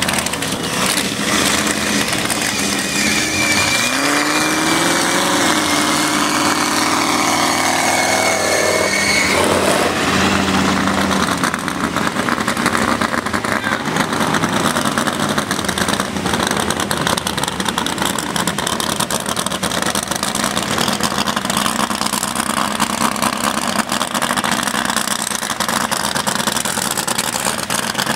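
Engines of big lifted mud trucks revving hard: an engine note climbs for several seconds and drops off sharply about nine seconds in, then loud, steady engine running follows.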